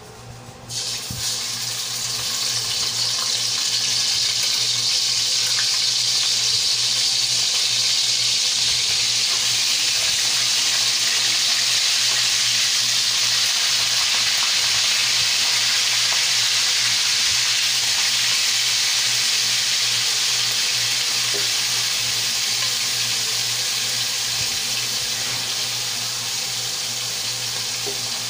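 Soy-and-calamansi-marinated chicken wings deep-frying in hot oil in a wok: a loud, steady sizzle that starts suddenly about a second in as the pieces go into the oil, easing slightly near the end.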